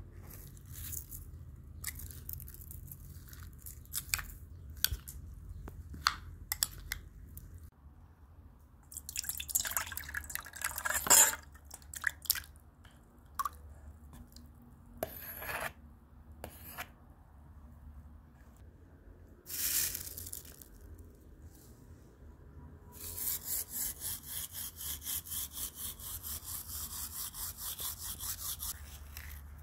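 Hand food-preparation sounds around a metal bowl of yogurt: scattered light clicks and taps, a wet slop of thick yogurt with a sharp knock near the middle, then rapid regular stirring in the bowl, about five strokes a second, near the end.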